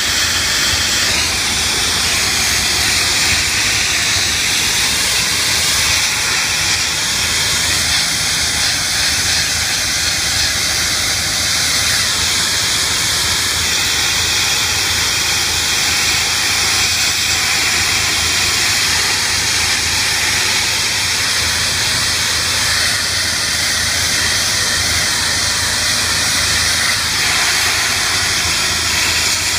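Pressure washer's high-pressure jet blasting chewing gum off a concrete sidewalk: a loud, steady hiss with a low hum underneath.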